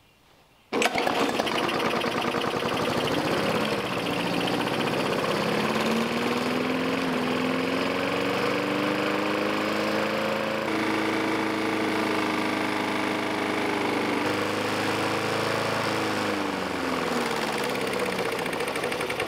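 Small single-cylinder lawn mower engine, ruined by sand drawn in through its air intake, running with heavy blow-by pouring out of its crankcase vent. It cuts in suddenly about a second in, its speed climbs through the middle, then sags and drops away near the end.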